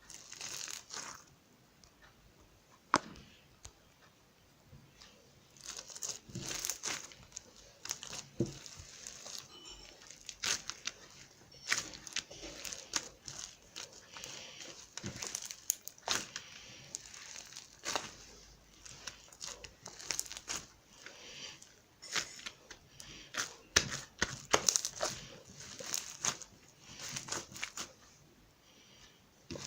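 Slime being squished, stretched and folded by hand, giving irregular sticky clicks, pops and crackles with brief pauses between handfuls.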